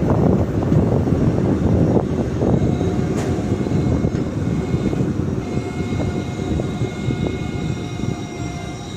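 Train running on the track: a steady rumble with wheel clicks over rail joints, easing off slowly. A steady high ringing tone of several pitches sets in about three seconds in and grows stronger about halfway through.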